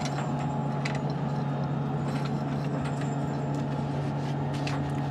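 Steady machinery hum of the International Space Station's cabin ventilation fans and equipment: a constant low drone under an even noise, with a few light clicks about a second in and near the end.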